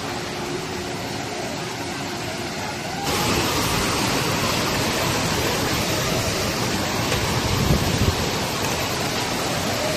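Steady rushing noise that jumps suddenly louder and brighter about three seconds in, with a brief low rumble about eight seconds in.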